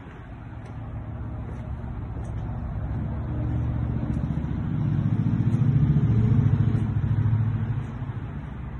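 A motor vehicle passing by: a low engine and road rumble that builds over several seconds, is loudest about six seconds in, then fades.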